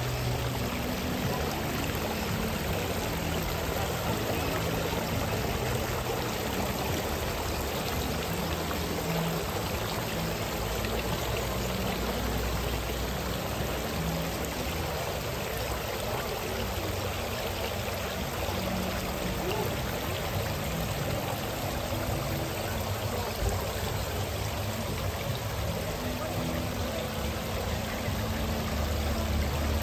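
Steady rushing background noise of an open-air swap meet, with the low bass notes of distant DJ music shifting underneath.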